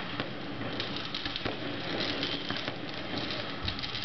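Many fireworks going off at once: a steady crackle of small pops and sharp cracks, with no single bang standing out, and thicker runs of cracks about one second and two seconds in.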